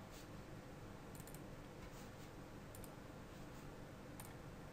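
A few faint computer mouse clicks, some in quick pairs, over a low steady background hiss.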